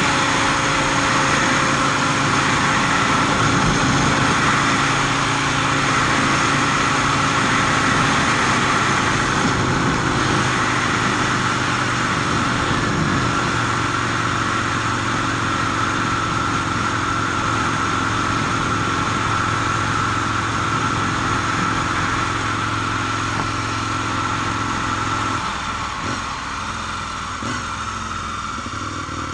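Aprilia RSV Mille R's 60-degree V-twin engine running steadily at cruising speed, with rushing wind and road noise. About 25 seconds in, the engine note drops and the sound eases off as the bike slows.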